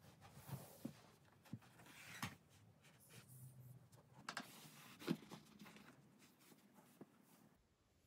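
Faint handling sounds of a flexible magnetic boundary strip being laid on carpet and pressed down by hand: soft rustles and a handful of light taps.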